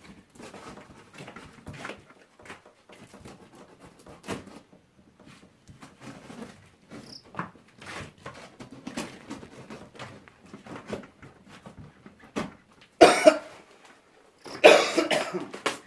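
Cardboard packaging being opened and handled: scattered small clicks and rustles, then two loud harsh bursts about a second and a half apart near the end.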